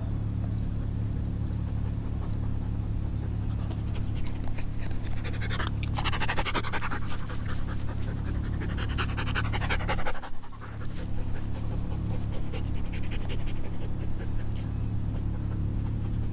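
A dog panting close by in quick, noisy breaths, loudest through the middle of the stretch, over a steady low hum.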